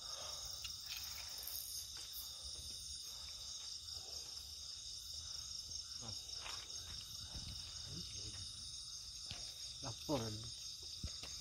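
Crickets and other night insects trilling in a steady high-pitched chorus with a fast pulsing texture.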